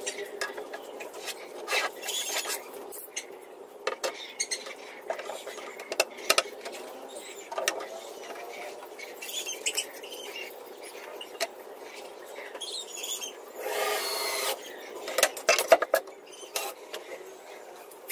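Cordless drill driving screws into a plywood cabinet partition, among scattered clicks and knocks of screws and boards being handled.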